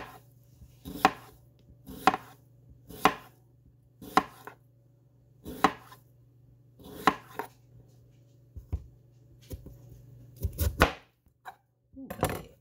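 Kitchen knife slicing raw potatoes thin on a plastic cutting board, each cut ending in a knock on the board about once a second, then a few slower, heavier knocks near the end.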